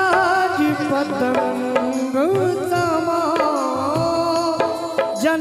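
Live bhajan music: tabla and dholak drumming under a sustained melody on an electronic keyboard, the melodic line gliding and ornamented.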